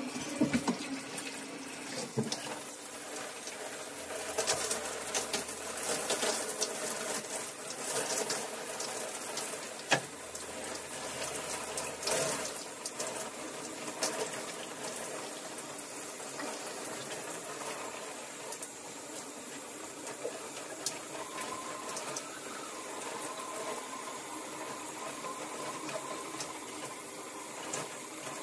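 Shower spray running steadily and splashing as hair is rinsed, with a few sharp knocks, the clearest about ten seconds in.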